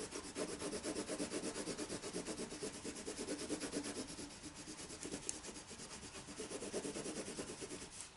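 Rapid up-and-down colouring strokes scratching across paper. The scratching is made loud by the stretched canvas backing behind the sheet, a funny noise; the strokes ease off briefly around the middle.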